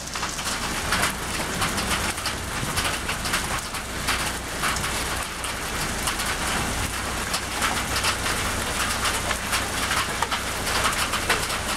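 Hail mixed with rain pelting wet asphalt: a dense, steady patter of many small, hard impacts over the hiss of the downpour.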